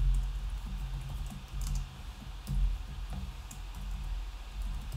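Computer keyboard typing: irregular keystroke clicks over a steady low hum.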